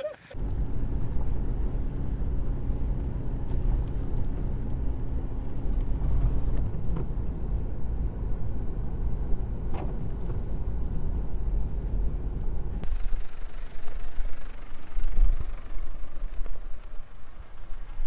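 Vehicles driving on a snowy road: a steady low engine and road rumble that changes abruptly about six and a half and thirteen seconds in.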